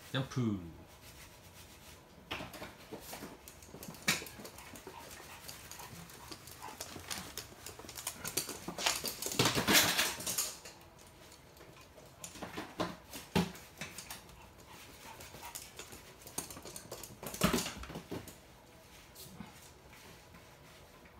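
Toy poodles playing on a wooden floor: claws clicking and scrabbling, with knocks against cardboard boxes as a dog jumps over them. A longer scuffle about halfway through is the loudest sound, and there is another sharp knock near the end.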